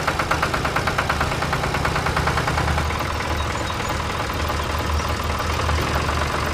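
A small engine running steadily with a rapid, even knocking beat over a low hum; the knocking fades somewhat about three seconds in.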